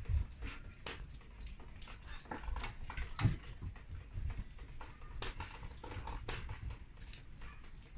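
Animal paws and claws on wooden deck boards: irregular light clicks and a few soft thumps as a Samoyed puppy and a lynx move about.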